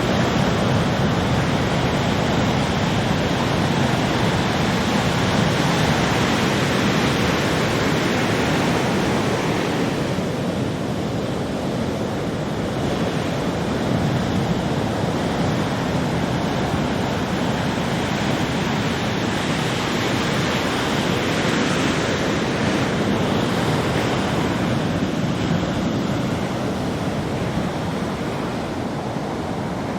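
Big ocean waves breaking one after another, a continuous wash of surf noise that swells and eases slightly over time.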